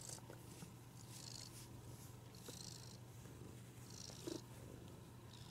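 Domestic cat purring steadily and quietly while being stroked, with a soft hiss that comes back about every second and a half.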